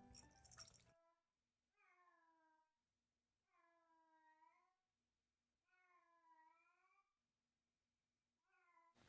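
A domestic cat meowing faintly four times, each meow about a second long with a pitch that dips and rises again, spaced about two seconds apart, the last one cut short.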